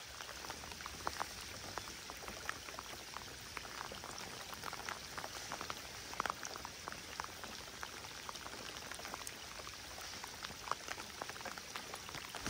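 Steady rain falling on open water: an even hiss with many small, scattered drop taps.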